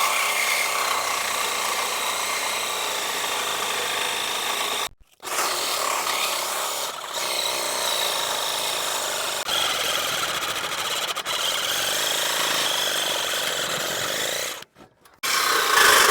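Power saw cutting through metal pipe to free a catalytic converter, a steady rasping cut broken twice by brief gaps.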